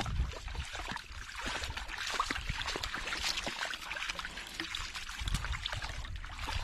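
African wild dogs wading through a shallow waterhole: paws splashing and sloshing in the water with scattered drips and trickles.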